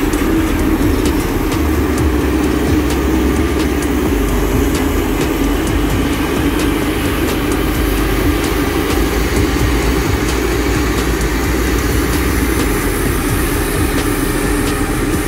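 JCB VM115 single-drum roller running steadily as it drives slowly over loose soil, a constant heavy diesel drone.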